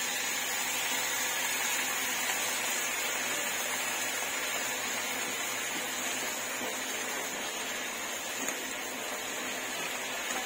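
Sautéed garlic, onion and sardines with fish sauce sizzling in a hot pan, a steady hiss.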